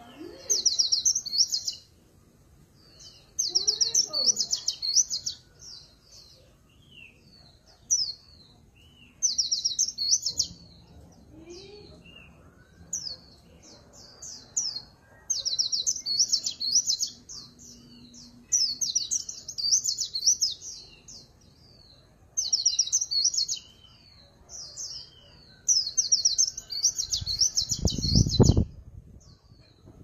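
Caged white-eye singing in the 'líu pha chòe' style: bursts of rapid, high, trilling warbles about a second or two long, repeated with short pauses, with phrases borrowed from the oriental magpie-robin mixed in. A low thump comes near the end.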